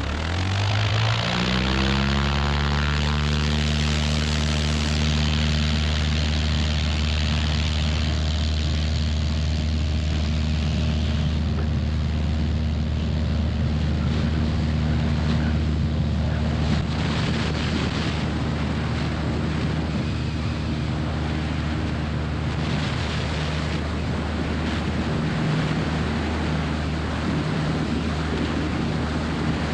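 Jodel DR1050 light aircraft's piston engine and propeller opening up to full throttle, the pitch rising over the first couple of seconds, then running steadily at full power through the takeoff roll and climb-out, with slipstream noise over it.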